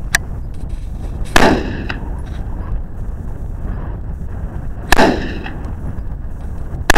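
Three shots from a Smith & Wesson AR-15 rifle in .223/5.56 firing 62-grain ballistic-tip rounds. They come about a second and a half in, near five seconds and right at the end, each with a fading echo rolling out across open ground.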